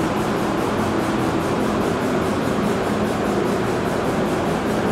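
Paint booth ventilation fans running: a steady, even rushing of air with a low hum underneath.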